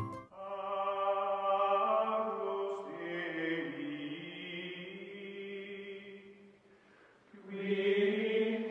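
Background music of slow, held chanting voices, choir-like. It fades about six and a half seconds in and swells back up about a second later.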